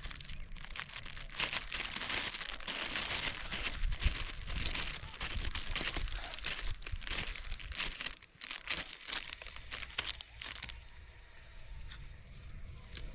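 Close rustling and crackling, a dense run of small crinkly clicks with a low rumble under it, easing off about eleven seconds in.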